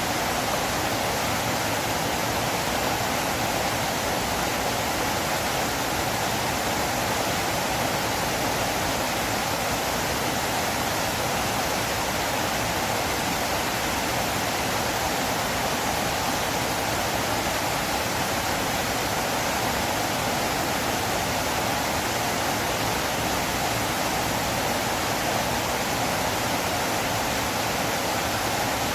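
Steady rushing of a flowing river, an even, unbroken wash of water noise with no change in level.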